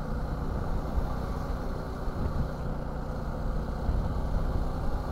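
Suzuki V-Strom 250 motorcycle engine running steadily under way, holding an even pitch with small swells in loudness.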